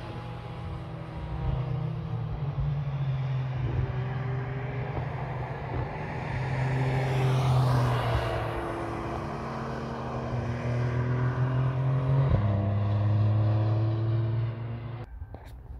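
Porsche 911 flat-six engine passing on track under power, loudest as it goes by about halfway through, then pulling away with an upshift, heard as a step down in pitch, about three-quarters through. The sound drops away abruptly near the end.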